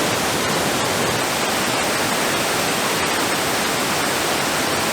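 Large waterfall on the Krka River rushing steadily, an even hiss of falling water with no breaks.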